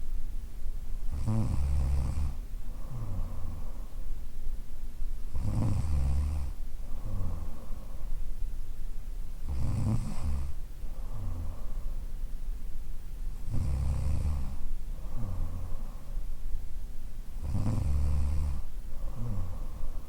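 A woman snoring in her sleep. A loud snore is followed by a shorter, softer one, and the pair repeats evenly about every four seconds, five times.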